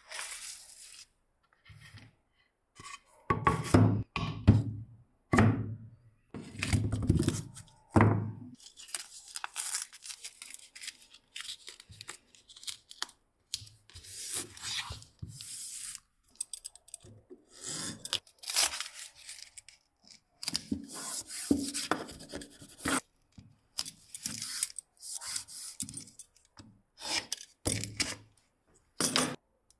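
Hand workshop handling: paper template sheets rustling, wide tape pulled off the roll and tearing, then rubbed down onto plywood, and near the end a utility knife scoring through the tape. A string of short tearing and rubbing sounds with brief silent gaps between.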